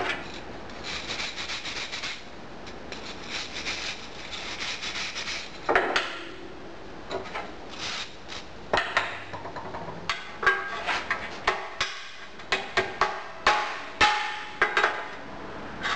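Sand being scraped and brushed around a small cast-iron wedge-test casting in a metal sand pan. About nine seconds in this gives way to a run of sharp knocks and taps, one or two a second, as the casting is worked free.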